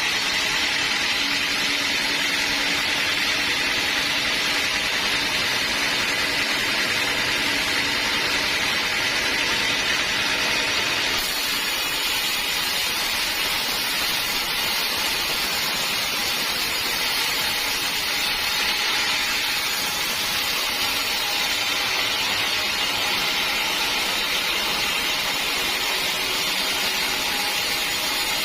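Sawmill blade running steadily through a teak log: a loud, even machine hiss with a thin steady whine. The sound shifts abruptly about eleven seconds in.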